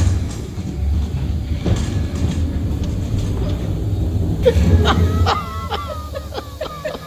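Low, steady rumble of the jungle boat ride's boat moving through the attraction. In the last couple of seconds, short wavering pitched sounds come in over it.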